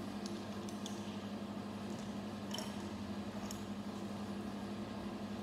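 Small plastic Lego bricks being handled and pressed together, giving a few short, sharp clicks: a cluster in the first second, then single ones about two and a half and three and a half seconds in. Under them runs a steady low hum.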